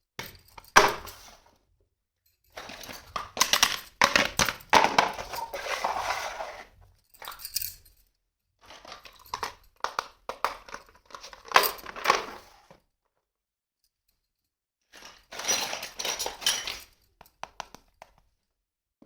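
Unboxing of a plastic toy kitchen set: crinkling and tearing of packaging with light clicks and knocks of plastic pieces, in several bursts separated by silent gaps.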